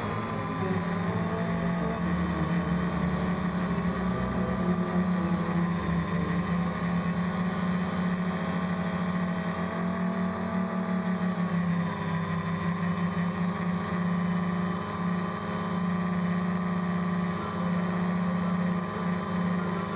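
DJI Phantom quadcopter's four electric motors and propellers buzzing steadily, heard from the GoPro mounted on the drone. The pitch dips and recovers a few times as the drone changes speed, most clearly a bit past halfway.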